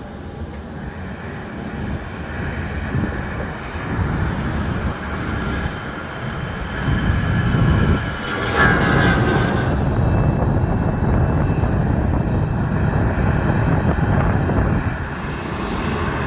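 Jet airliner's engines running, growing louder about six seconds in and staying loud.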